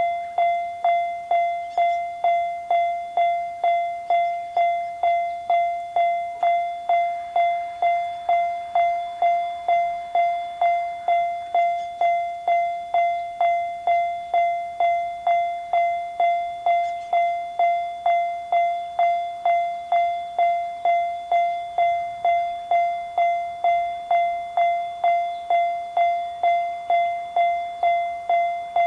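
Japanese railroad level-crossing warning bell sounding its even "kan-kan" ding, just under two strikes a second. Each strike is one bright tone that decays before the next, which means the crossing is active and a train is approaching.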